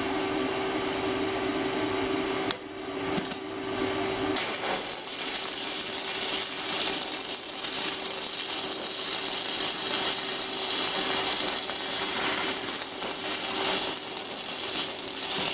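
Stick-welding arc from an E6013 rod on mild steel, a steady dense crackle and sizzle with a brief break about two and a half seconds in. A steady hum runs underneath.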